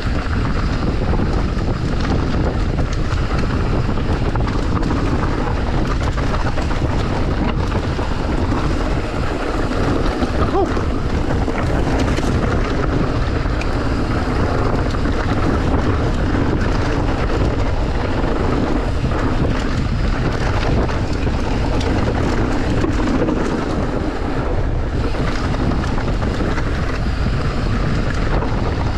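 Wind rushing over the camera microphone as an e-mountain bike rides fast down a rough dirt trail, with steady tyre rumble and a few short knocks from the bike over bumps.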